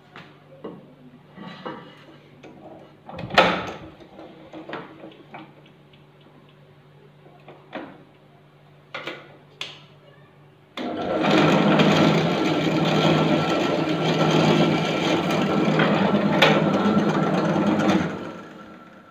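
Benchtop drill press motor humming steadily, with a few knocks as a wooden block is handled and placed on the table. About eleven seconds in, the bit plunges into the wood and a loud drilling noise runs for about seven seconds before dying away.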